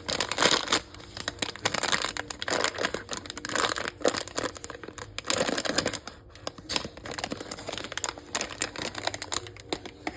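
Packaging being handled and opened by hand: irregular crinkling and rustling, with some tearing.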